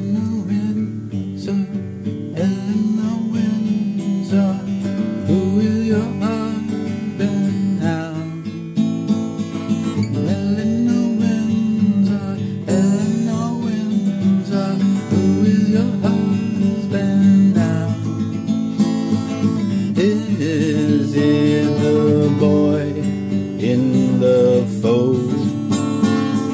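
Acoustic guitar strummed steadily as song accompaniment, with a voice singing over it.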